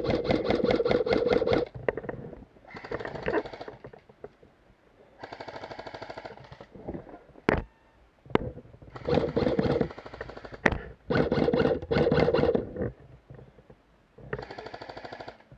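Full-auto bursts from airsoft electric guns (AEGs): the fast mechanical rattle of the gearboxes cycling. There are about seven bursts of up to two seconds, some loud and close, others fainter and farther off, with two single sharp cracks near the middle.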